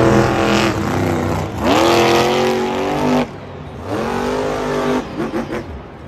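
Monster truck's supercharged V8 revving hard in repeated bursts. Each burst climbs quickly in pitch, holds, then drops off sharply, once about three seconds in and again about five seconds in. It is quieter and uneven near the end.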